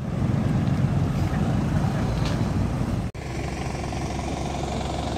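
Steady low rumble of a vehicle engine running close by, cut off for an instant about three seconds in and then resuming.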